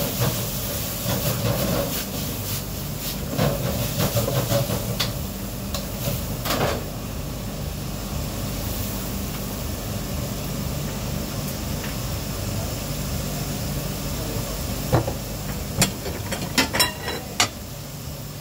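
Restaurant kitchen at work: a steady hum and hiss of running equipment, with scattered clatter and a run of sharp knocks of dishes or utensils near the end.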